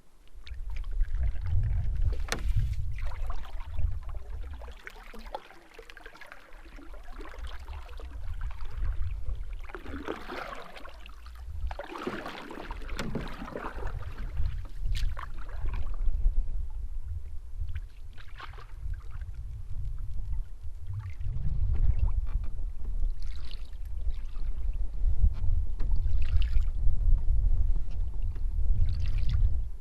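Canoe paddle strokes swishing and splashing through the water every few seconds, over a steady low rumble of wind buffeting the microphone.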